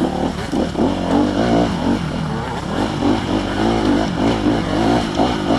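Honda CRF250R single-cylinder four-stroke dirt bike engine revving up and down over and over under throttle as it rides a rough, rutted trail.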